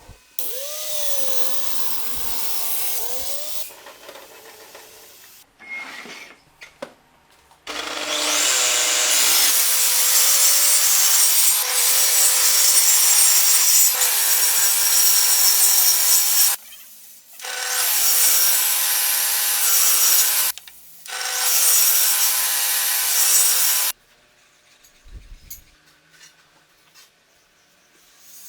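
Angle grinder cutting and abrading wood. It spins up about eight seconds in and runs for about nine seconds, then makes two shorter runs of about three seconds each. A shorter, quieter sound with a wavering pitch comes near the start.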